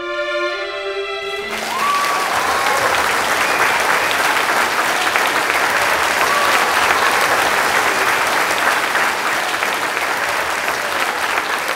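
Music with held notes stops about a second and a half in, and a crowd breaks into loud, sustained applause.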